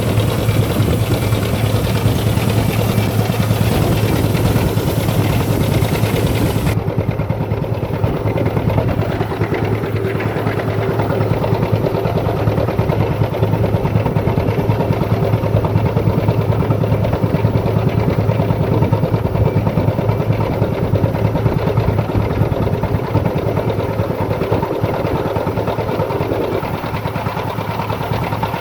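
Diesel engine of a pile-drilling rig running steadily under load, a low hum with a rapid, even pulsing. A higher hiss over it cuts off suddenly about seven seconds in.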